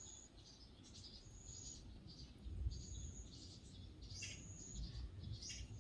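Faint birds calling: a thin high whistle held about half a second, repeated every second and a half or so, among short chirps, over a low background rumble.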